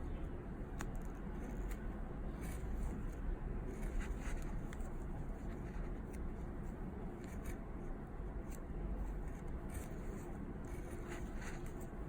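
Crochet hook working yarn through stitches: soft rubbing and scattered light clicks, over a steady low hum.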